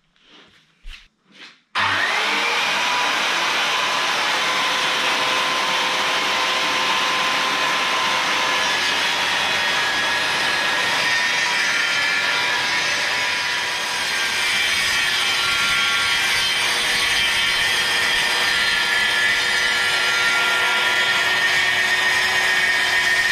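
A few light knocks, then about two seconds in a Metabo KS 55 FS circular saw and the site vacuum linked to it start together suddenly. They run steadily as the saw cuts along a fermacell gypsum-fibre board, with a short dip in level about halfway through.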